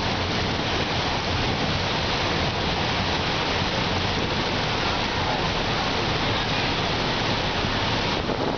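Steady rushing and splashing of floodwater churned up by a bus as it drives through a flooded street.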